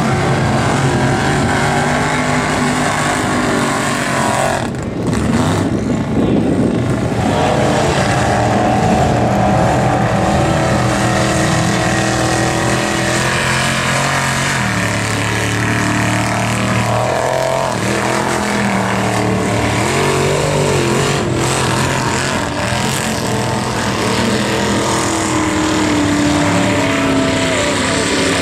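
Square-body Chevy mega mud truck's engine running hard through the mud, revving with its pitch rising and falling repeatedly as the throttle changes.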